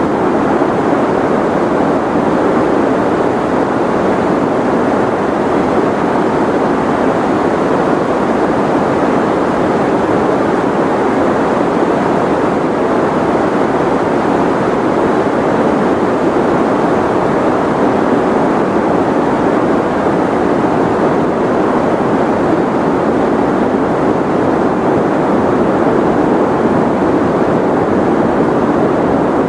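Continuous white noise for sleep, perfectly steady and unchanging. It has a dull, muffled tone, strongest in the lower middle and with little hiss at the top.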